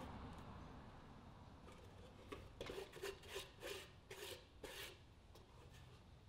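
Hands handling and turning a small cedar wooden box, a quick run of about eight short rubbing scrapes of skin on wood in the middle of an otherwise quiet stretch.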